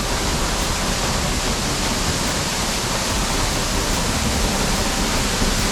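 Small waterfall running full after rain, a steady loud rush of falling water close by.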